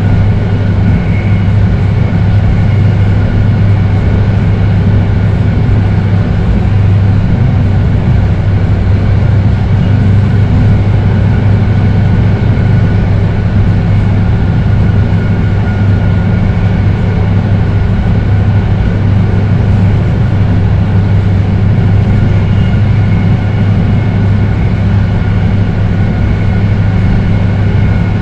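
BART 1972 Rohr B2 rapid-transit car running at steady speed between stations, with its Adtranz 1507C traction motors and steel wheels on rail. It gives a loud, even low rumble with a faint high whine that holds its pitch.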